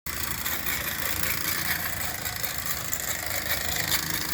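Mamod TE1-A toy steam traction engine running on 3D-printed flexible PLA+ tires: a steady mechanical running clatter and hiss made of many fine, rapid ticks.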